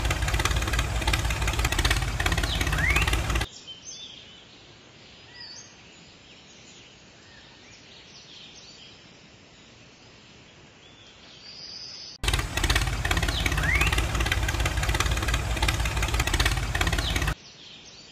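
Steady tractor-like engine running sound for the toy tractor, strong in the low end. It drops away about three and a half seconds in to a quiet stretch of faint bird chirps, then comes back about twelve seconds in and cuts off shortly before the end.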